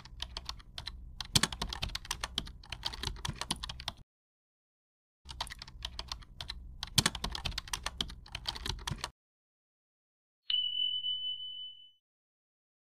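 Keyboard typing sound effect: rapid key clicks in two runs of about four seconds each, as text is typed out. A few seconds later a single bright ding rings for about a second and a half, marking the answer.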